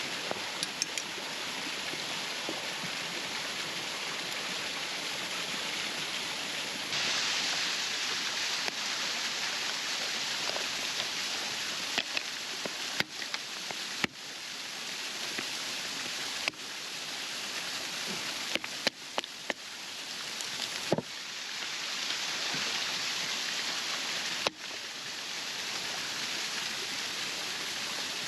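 Waterfall rushing steadily, with a few short sharp clicks over it; the level of the rush shifts abruptly several times.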